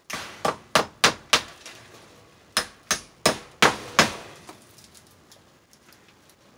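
Hammer nailing metal wire mesh to a concrete wall: two quick runs of about five sharp blows each, with a pause of about a second between them.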